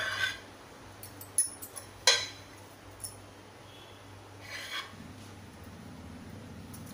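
Kitchen knife cutting a thin sheet of rolled dough on a round metal rolling board: a few short scrapes and sharp ticks of the blade against the metal, the loudest tick about two seconds in.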